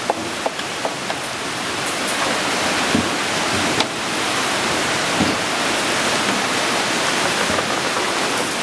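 Water rushing and splashing through a turning wooden water wheel, a steady rush with a few dull thuds as paddles dip in.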